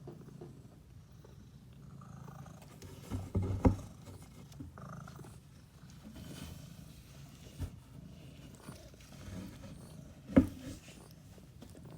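Kitten purring close to the microphone, a steady low rumble. Two sharp knocks cut through it, one a few seconds in and one near the end.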